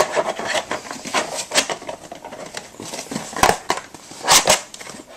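Hands handling a deck box and card packaging: rustling and scraping, with a few sharp clicks and knocks, the loudest about three and a half and four and a half seconds in.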